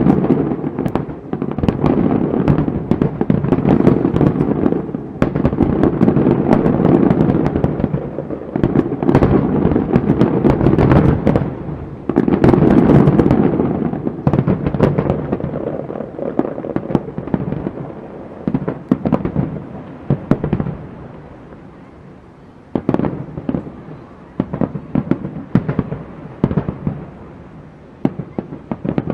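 Fireworks display: aerial shells bursting in rapid, overlapping volleys with crackle. The volleys are dense for the first half, then thin out into separate bursts, with a sharp loud one near the end.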